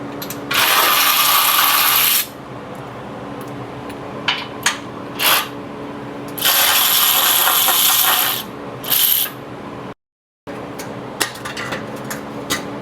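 A power tool runs in two spells of about two seconds each, backing out the two 16mm skid-plate bolts, with a few short metallic clinks in between.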